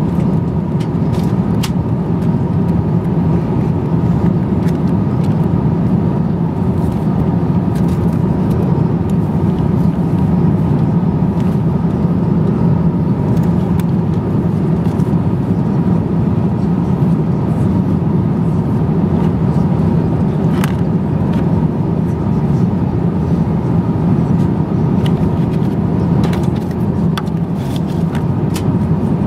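Steady cabin roar of an Airbus A350-900, a deep even rush with a faint steady hum in it. A few light paper rustles and clicks come through as seat-pocket magazines and the safety card are handled, several near the start and a cluster near the end.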